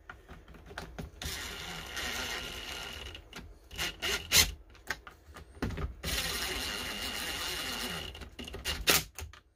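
Cordless drill/driver running twice, each time for about two seconds with a steady whine, with knocks and clicks of handling between and after the runs.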